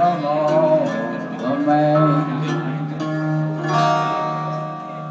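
Acoustic guitar playing the closing bars of a blues song, a melody that bends in pitch over a steady low note, easing off near the end.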